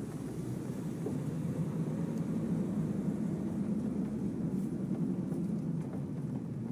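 Steady low rumble of a vehicle in motion, swelling a little in the middle.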